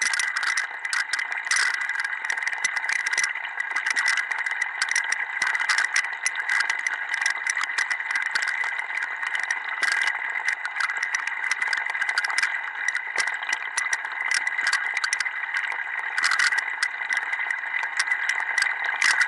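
Running water in a sink's supply plumbing, picked up by an Aqua-Scope leak detector's direct-contact probe and amplified into a steady hiss with frequent crackles.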